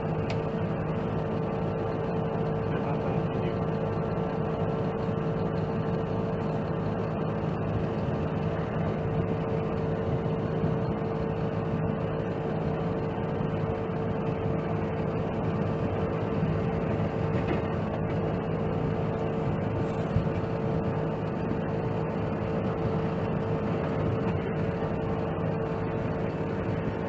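Dump truck engine and drivetrain running steadily while the truck is driven at an even speed, with a constant whine over the engine hum.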